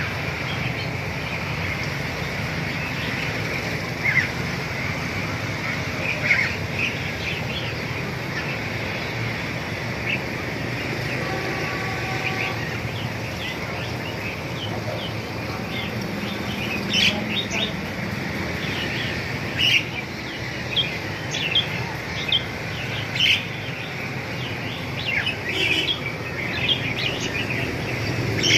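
Many caged songbirds chirping, short overlapping calls scattered throughout and busier in the second half, over a steady low background rumble.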